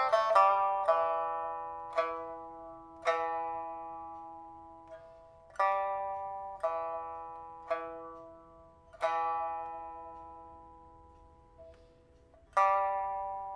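Pipa with a newly replaced soundboard and frets, played slowly: widely spaced single plucked notes, each left to ring and fade away, after the last few quick notes of a faster passage at the very start.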